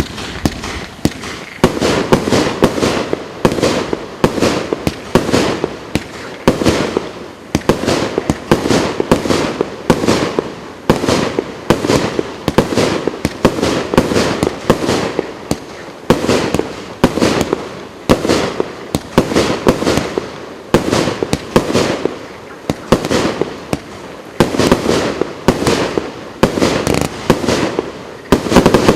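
A 36-shot, 30 mm (1.2-inch) firework battery cake firing shot after shot, about one a second. Each shot is a sharp bang with a short noisy tail.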